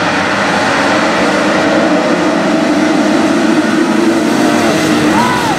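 A full field of motocross bikes accelerating hard off the start together, many engines at high revs blending into one dense, steady noise.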